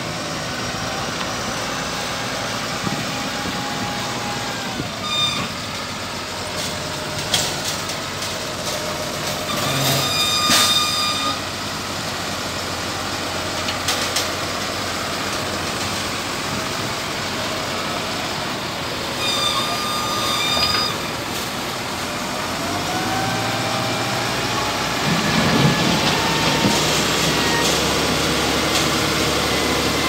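Diesel engine of a Lonking CDM843 wheel loader running and revving up and down as it works a gravel pile. Two short spells of reversing-alarm beeps come about ten and twenty seconds in, with a few sharp knocks.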